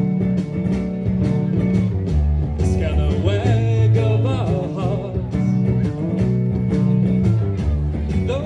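Live rock-folk band playing an instrumental passage between sung lines: guitar and acoustic fretless bass over drums, with a lead line that bends in pitch.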